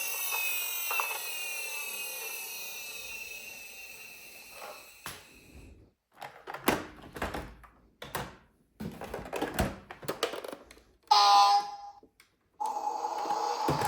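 A toy emergency vehicle's electronic siren sound falls in pitch and fades away over the first few seconds. Clicks and knocks from plastic toy cars being handled follow. About eleven seconds in there is a short, loud toy tone, and another steady toy sound starts near the end.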